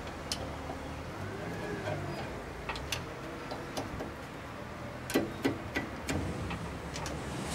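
Scattered light clicks and knocks of metal parts being handled on the compressor casing, with a few louder knocks close together about five seconds in.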